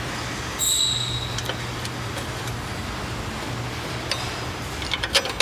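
A steady low hum, with a brief high squeak about half a second in and a few light metallic clicks near the end as a long bolt is worked through a steel snow plow bracket and the truck's frame.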